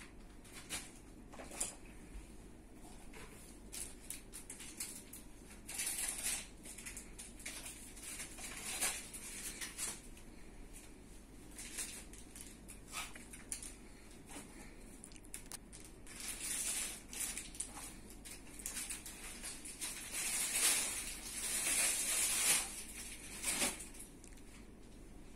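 Irregular rustling and crackling with scattered clicks, in swells that are loudest about two-thirds of the way through, over a faint steady low hum.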